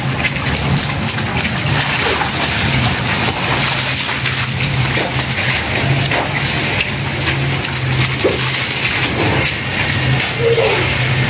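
Heavy rain falling steadily and splashing on a rooftop terrace, over a low steady hum.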